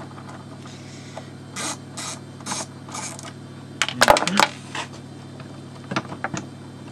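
Plastic scraping and clicking as the projector lens unit of a Mercedes-Benz headlight is worked loose from its housing by hand: four short scrapes about a second and a half in, a cluster of clicks and knocks around four seconds in, and a couple more clicks near the end, over a steady low hum.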